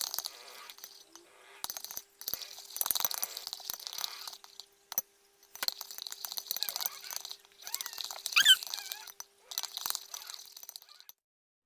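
A utensil stirring Radox and table salt in a container: irregular scraping and clinking, with a short squeak about eight and a half seconds in.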